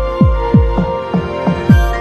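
Background music: deep, pitch-dropping bass beats about three times a second under held synth notes.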